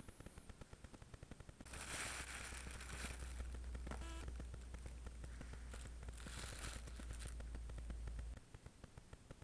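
A makeshift body bag around an action figure rustles and crinkles close to the microphone in two bouts. Underneath is a low rumble of handling noise that starts about two seconds in and stops near the end.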